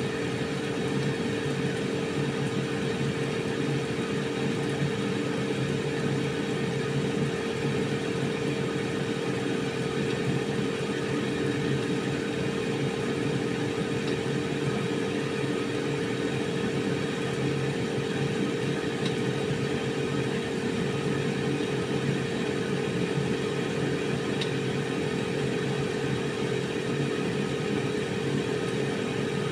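Air fryer running, a steady whirring hum with a constant tone.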